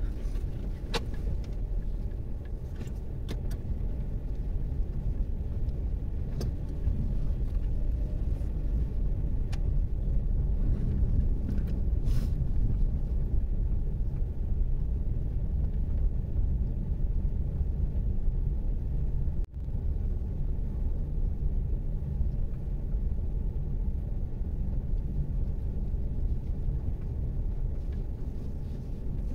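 Haval Jolion driving, heard from inside the cabin: a steady low rumble of engine and road noise, with a few light clicks in the first dozen seconds and a momentary break in the sound about two-thirds of the way through.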